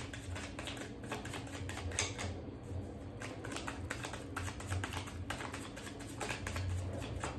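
Tarot cards being shuffled and handled by hand: a run of quick, irregular papery clicks and flicks.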